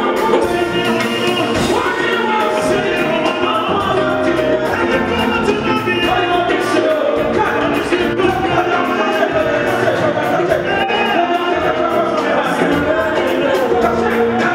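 Live Ghanaian gospel music: a band with drums and bass guitar plays a steady, even beat while two male lead singers sing into microphones.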